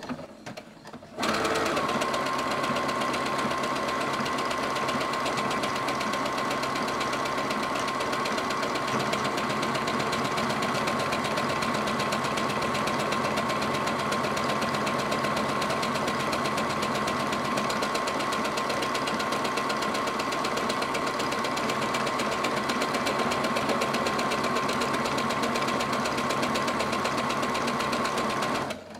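Brother CS6000i sewing machine stitching a one-step buttonhole with its automatic buttonhole foot: the motor starts about a second in, runs at a steady speed with a constant whine, and stops just before the end.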